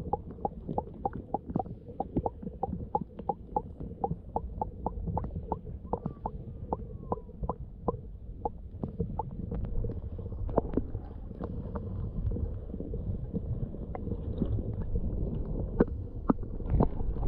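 Muffled underwater sound picked up by a submerged camera: a low rumble of moving water with a run of sharp clicks, about four a second and evenly spaced at first, then irregular and louder near the end.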